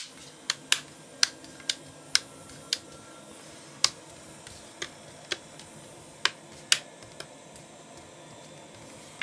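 Hand work on a laptop's frame and the clamps holding it during a hinge repair: about a dozen sharp, irregular clicks and taps, which stop a little after seven seconds.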